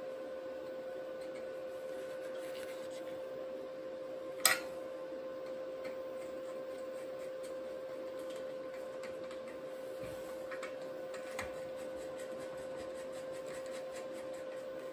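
Socket ratchet clicking in short runs as a steering-rack mounting bolt is tightened, with one sharp metal clink about four and a half seconds in. A steady hum runs underneath.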